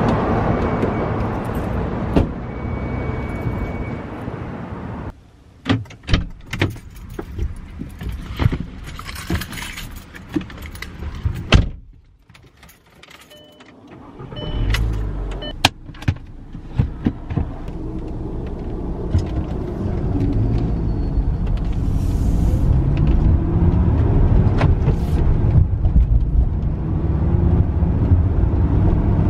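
Clicks and jangling keys inside a Volkswagen Beetle's cabin, then, from about halfway through, the low rumble of the car driving off, growing louder and steadier.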